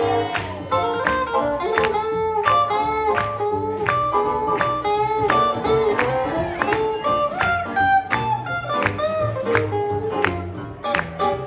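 Live swing jazz band playing an up-tempo tune, a guitar carrying the melody line over a steady beat.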